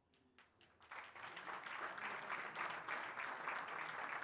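Audience applause: a few scattered claps, then the crowd breaks into steady clapping about a second in.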